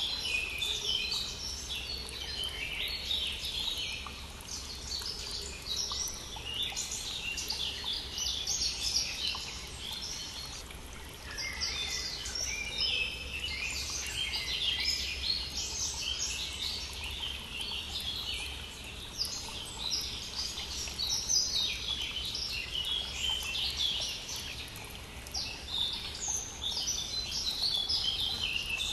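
A spring chorus of many songbirds, overlapping chirps and trills without pause, over the steady rush of a brook.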